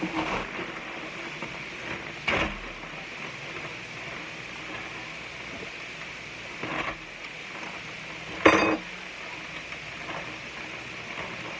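Kitchen dishes and utensils knocking and clinking, four separate knocks with the loudest near the end, over a steady background hiss.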